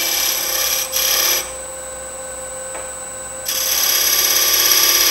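Negative rake scraper cutting the inside wall of a box blank spinning on a wood lathe: a steady scraping hiss over the lathe's whine. It drops away for about two seconds after the first second and a half, leaving the lathe running, and comes back about three and a half seconds in.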